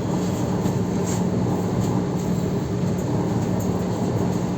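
Suburban electric multiple-unit train running along the line, heard from inside the carriage: a steady rolling rumble of wheels on the rails with a constant low hum.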